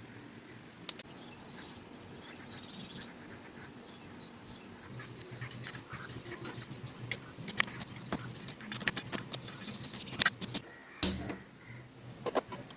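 Irregular light clicks and knocks of kitchen work, sparse at first and growing quicker and denser from about halfway, with a few louder knocks near the end.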